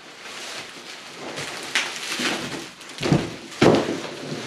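Crinkling rustle of bubble wrap and cardboard as a large bubble-wrapped plastic skid plate is slid out of its tall cardboard box, then two thumps about three seconds in as the emptied box tips over onto the concrete floor.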